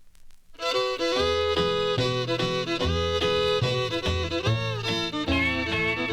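Instrumental intro of a 1953 country song played from a 78 rpm shellac record: a country band with a sustained, sliding lead line over a steady bass beat. About half a second of faint surface crackle comes before the band starts.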